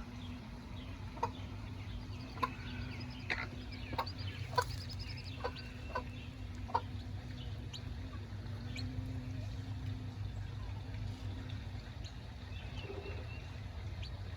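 Chickens clucking and peeping: a run of short, sharp calls in the first seven seconds or so, then only scattered ones, over a steady low hum.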